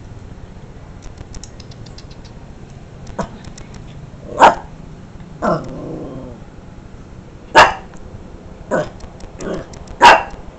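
A small dog barking in short, separate barks, about seven at irregular intervals starting a few seconds in, with the loudest near the middle and end. One bark trails off into a brief growl.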